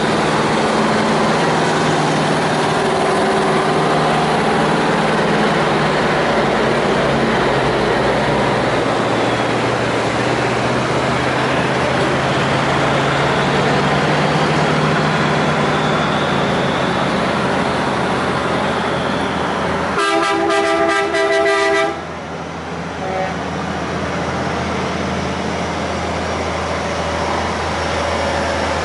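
Vintage Brockway heavy trucks driving past one after another, their engines running steadily. Near the end, a truck horn sounds one blast of about two seconds.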